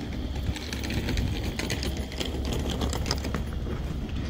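Tram on street track: a low rumble with a rapid, irregular clatter of mechanical clicks through most of it.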